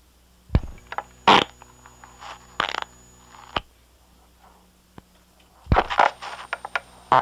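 Farts recorded on an old cassette tape, played back: short, uneven bursts with gaps between them, then a quick run of several near the end, over a steady low playback hum.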